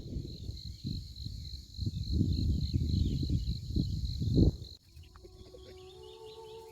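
Wind gusting on the microphone over a steady high insect trill, typical of crickets. About two-thirds of the way through, it cuts off suddenly, and faint held tones follow.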